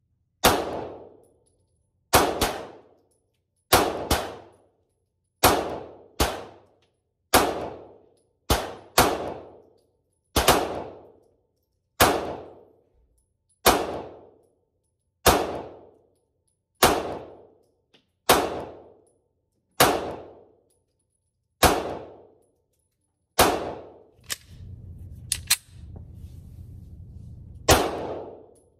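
Single 9mm pistol shots fired slowly and steadily, about eighteen in all, one every one and a half to two seconds. Each is a sharp crack with about a second of ringing decay. Near the end there is a short pause filled with low rustling.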